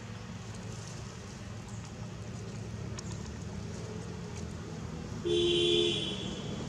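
Steady low rumble of distant traffic, with one short, steady two-tone vehicle horn honk a little after five seconds in.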